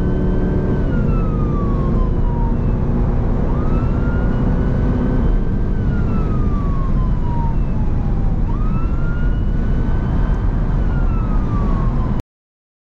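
Emergency response car's siren on a slow wail, rising quickly and then falling slowly about every four seconds, over steady road and engine noise. The sound cuts off suddenly near the end.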